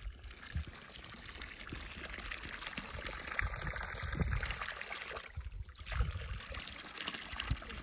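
Spring water running steadily from a pipe into a stock-watering trough, a continuous splashing trickle.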